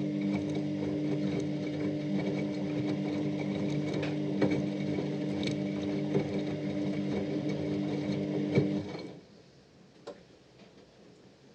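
Washing machine motor running with a steady hum and scattered rattling clicks, then cutting off about nine seconds in, leaving only a few faint ticks.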